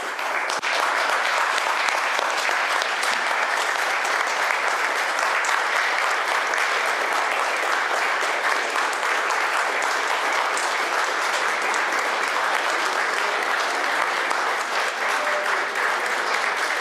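Audience applauding: many people clapping in a dense, steady applause that swells up within the first second and keeps going without a break.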